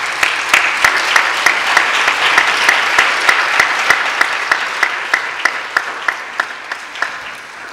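Audience applauding, with sharper individual claps standing out about three times a second over the dense clapping; the applause slowly dies down near the end.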